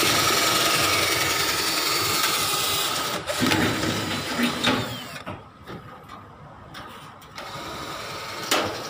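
Power drill running steadily at full speed for about three seconds, then in a few short uneven bursts and winding down; it runs steadily again, more quietly, near the end, with a single click.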